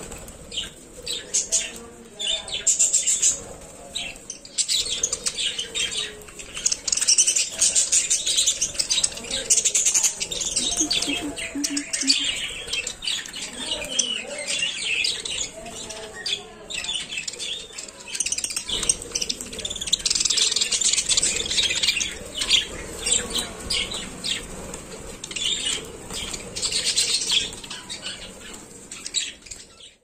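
A flock of budgerigars chirping and chattering in an aviary, with many quick high chirps that rise and fall in louder spells.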